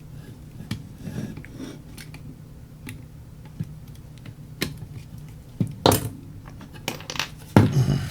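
Small tools and parts being handled on a workbench: scattered clicks and taps over a low steady hum, with louder knocks about six seconds in and near the end.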